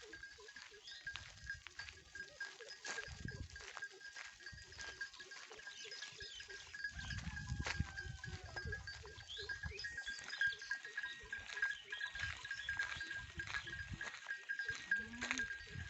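Herd of local goats grazing and moving through forest undergrowth: scattered rustles and snaps, with a steady high-pitched drone running under them.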